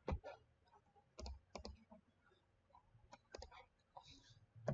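Several faint computer mouse clicks, scattered and some in quick pairs.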